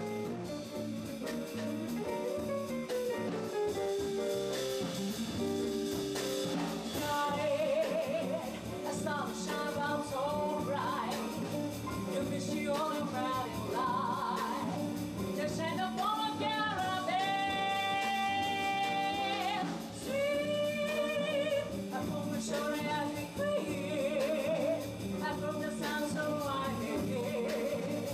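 A female vocalist singing a jazz song with a live band of electric bass, drum kit and guitar. Around the middle she holds one long note with vibrato.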